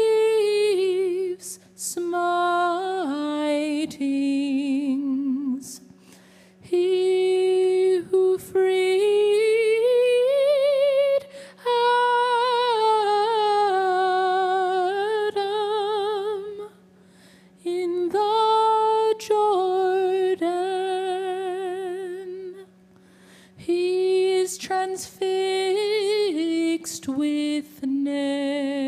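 A woman singing solo and unaccompanied: a slow melody in long held notes with a wide vibrato, in phrases separated by short pauses for breath. A faint steady low hum runs underneath.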